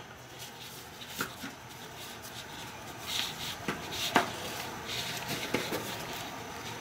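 Soft rustling and a few light clicks from hands working a rivet post through the padded nylon webbing of a dog collar.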